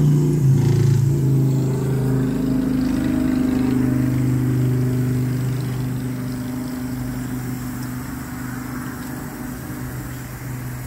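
An engine running with a steady low hum, its pitch shifting in the first two seconds, then slowly growing quieter.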